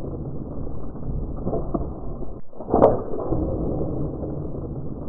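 Slowed-down, muffled replay of a bowfishing shot: a low rumbling wash of water and wind with one sharp snap from the shot about three seconds in.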